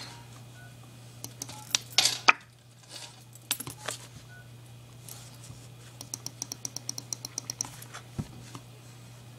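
A few short rustling bursts about two seconds in, then a quick run of about a dozen light, evenly spaced clicks, like typing, lasting about a second and a half. A low steady hum lies under all of it.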